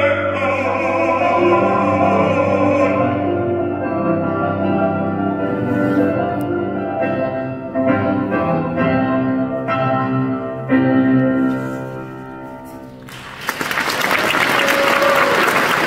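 An operatic bass voice holds a final, wavering high note over piano for about three seconds. The piano then plays the closing chords of the aria alone, dying away, and about thirteen seconds in the audience breaks into applause.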